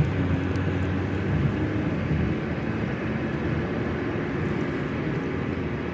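Steady road and engine noise heard from inside a moving car's cabin: a constant rumble with a low hum.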